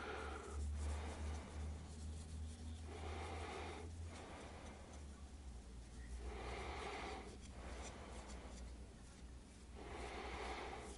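Quiet rubbing of a hand along the wooden handle of a Yakut knife, coming in bouts of a second or so about every three seconds, over a low steady hum.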